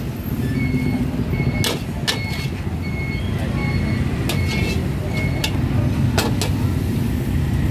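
A metal spatula clanking and scraping against a steel wok, with several sharp strikes that ring briefly, over a steady low rumble.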